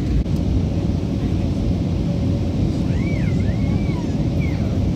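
Steady low roar inside an Airbus A320 cabin on approach: engine and airflow noise heard from a window seat over the wing.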